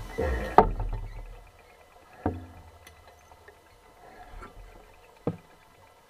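Underwater sound of a dive: a low rumble with a loud burst in the first second, then sharp knocks about 2.3 and 5.3 seconds in.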